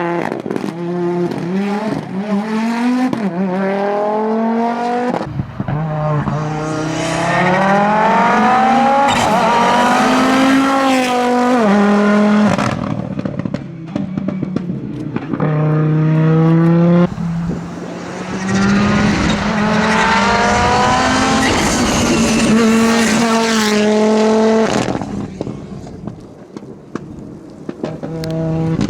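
Audi Quattro S1 rally car's engine at full throttle on a stage, climbing in pitch and dropping back at each gear change, again and again. It eases off briefly near the end before picking up again.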